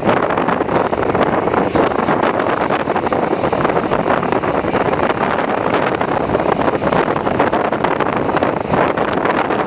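Loud, steady rush of wind on a microphone held out of the window of a moving NS Sprinter (SGMm) electric train, mixed with the train's running noise on the track.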